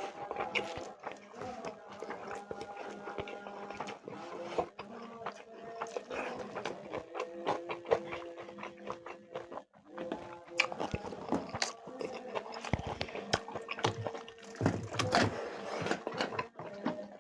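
Close-up eating of chicken leg curry with rice: chewing and biting with irregular wet clicks and smacks.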